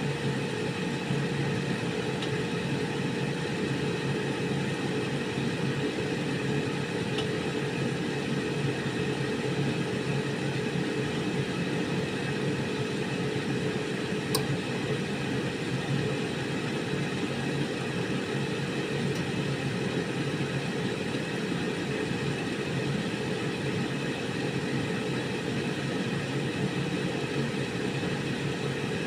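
Air fryer running: its fan gives a steady whir with a constant hum, and a single faint tick sounds about halfway through.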